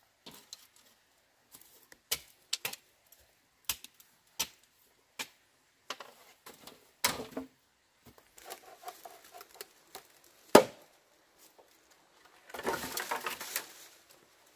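Scattered sharp knocks and clicks, with one loud knock about ten and a half seconds in, then a second or so of rapid clattering near the end.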